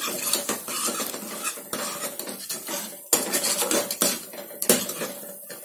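Steel ladle stirring and scraping tomato-onion masala in an aluminium pressure cooker, with repeated clinks of metal against the pot. A few sharper knocks of the ladle on the rim come in the second half.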